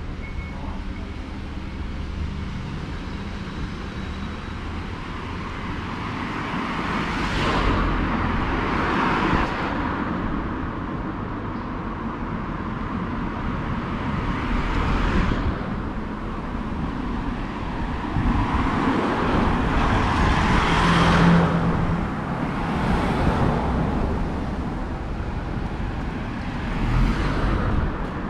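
Traffic on a city street: a steady road hum with several cars passing one after another, each swelling up and fading away over a second or two.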